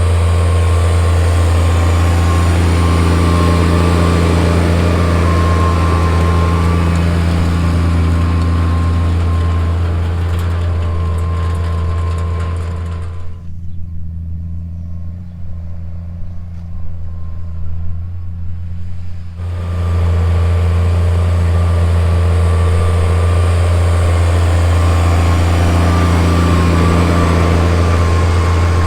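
Tractor engine running at a steady pitch while pulling a row-crop cultivator through corn. About halfway through, the sound turns quieter and muffled for several seconds, then comes back to full strength.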